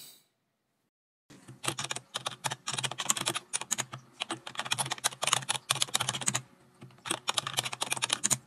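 Rapid computer-keyboard typing clicks, used as the sound effect for the outro text appearing letter by letter. The typing starts after about a second of silence and breaks off briefly about two-thirds in before resuming.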